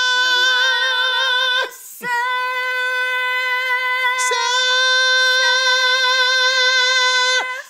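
A woman singing two long, steady high notes on the same pitch, with a short breath between them about two seconds in.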